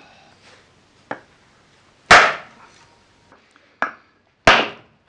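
A hammer strikes a wooden block held over a Land Rover swivel ball housing, driving a part into the housing. There are two heavy blows, about two seconds in and again near the end, and lighter taps before each.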